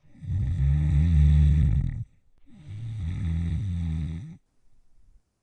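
Cartoon-style snoring sound effect: two long, low, rumbling snores of about two seconds each, the second a little quieter.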